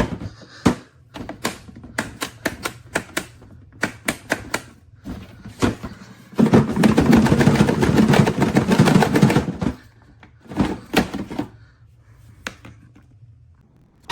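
Repeated hard plastic clicks and knocks as a DEWALT 20V MAX battery pack is worked into the vacuum's battery slot, where it does not seat properly. In the middle a louder, rough rattling noise lasts about three seconds, followed by a few more clicks.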